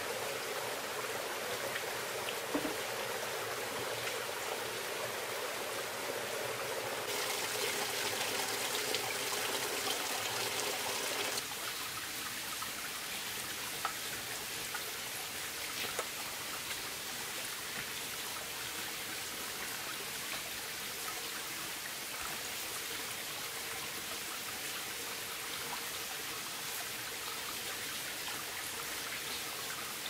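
Water from a bamboo pipe splashing onto rocks. About eleven seconds in, the sound changes abruptly to steady rain with scattered drips.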